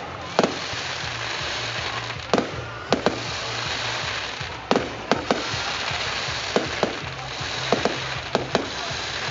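Aerial fireworks going off: about a dozen sharp bangs at irregular intervals, some in quick pairs, over a steady background hiss.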